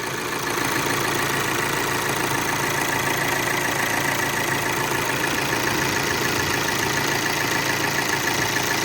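Volkswagen Amarok turbo diesel engine idling steadily with a new timing belt, tensioner and water pump fitted and its timing reset.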